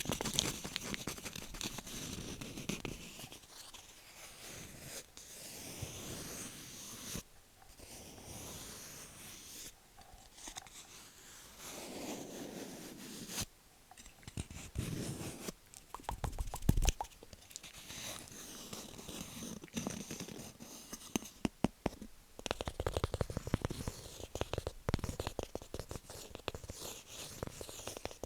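Close-miked tapping, scratching and rubbing on wooden objects: runs of quick taps alternate with stretches of soft scratchy rustling.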